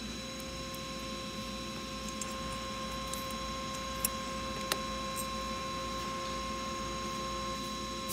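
Small brass fittings and lens parts being handled and fitted into a tube: a couple of faint clicks about four and nearly five seconds in. A steady electrical hum with a few high tones runs underneath.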